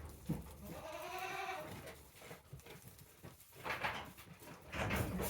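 A goat bleating: one wavering call about a second long, followed by a few shorter, fainter sounds near the end.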